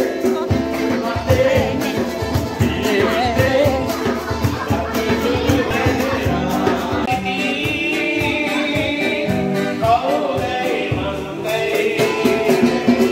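Live band music with a singer, acoustic guitar and a steady beat.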